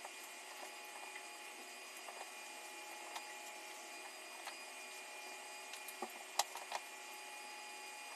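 3.5-inch hard drive running after power-up with a newly fitted read/write head: a faint, steady whine with scattered light clicks, the sharpest about six and a half seconds in.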